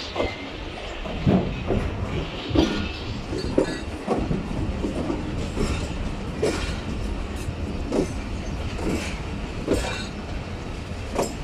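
Passenger train coach rolling slowly out of a station, heard from its open door: a steady low rumble with knocks from the wheels and coach about once a second, irregularly spaced.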